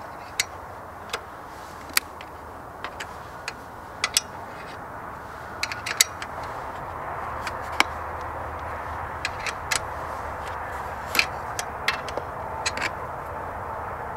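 Irregular sharp clicks and taps of hands working at the plastic and metal fittings on the side of a generator, over a steady background hiss.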